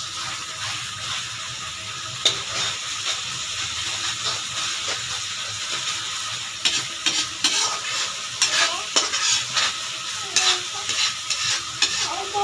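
Ground onion-and-spice masala paste sizzling as it fries in oil in a kadai, stirred with a spatula that scrapes and taps against the pan. The taps come often in the second half.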